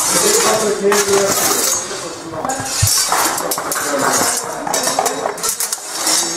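Steel practice swords clashing again and again in sword-and-buckler sparring, several pairs at once, giving irregular sharp metallic clinks and scrapes.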